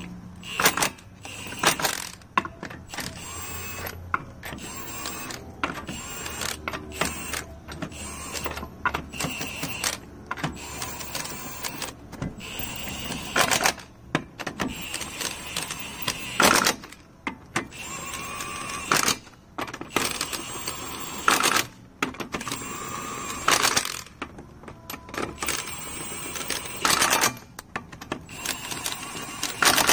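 Cordless impact wrench hammering lug nuts tight onto a refitted wheel, in many short bursts of rapid rattling with brief pauses between nuts.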